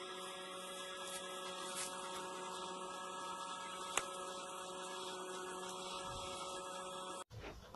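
A steady hum made of several held tones, with one sharp click about four seconds in. It cuts off abruptly shortly before the end, giving way to uneven, irregular sounds.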